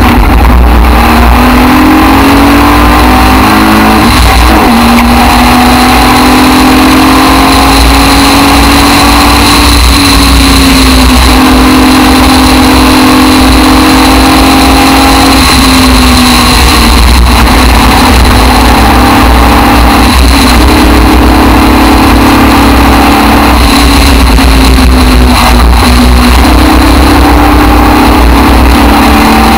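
Aston Martin DBR1 tribute race car's engine at speed, heard from on board, its pitch climbing under acceleration and dropping several times at gear changes and lifts for corners. A heavy wind rumble from the open cockpit sits under it.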